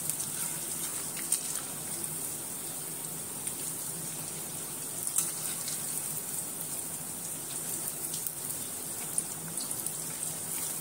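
Sabudana vadas deep-frying in a kadhai of hot oil: a steady sizzle, with a few light clicks scattered through it.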